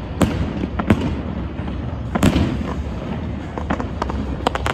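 Fireworks display: aerial shells bursting in several sharp bangs over a low rumble, the loudest a little over two seconds in.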